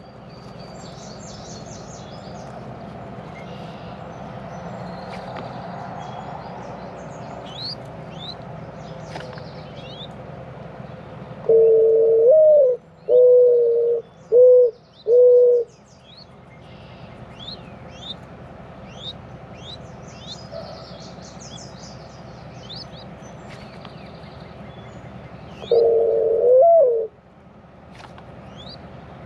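Mourning dove cooing: a long note that swoops up at its end, followed by three shorter, lower notes, then a single rising note again near the end. Small songbirds chirp faintly and briefly throughout.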